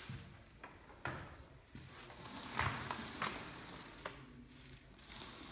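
About five light, sharp knocks and clicks over a faint background, the loudest two about two and a half and three seconds in.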